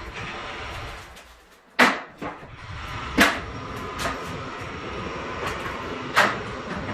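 Three loud, sharp knocks from installation work, about two seconds in, a second and a half later, and near the end, with lighter taps between them over a steady background noise.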